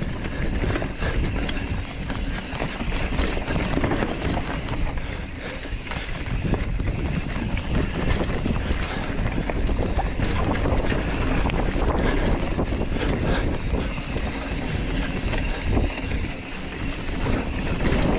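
Mountain bike rolling fast down a rocky dirt trail: continuous tyre rumble and bike rattle with frequent small knocks, under wind noise on the camera's microphone.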